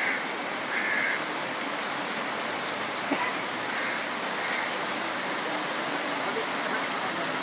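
Steady rush of a shallow river running over rocky rapids.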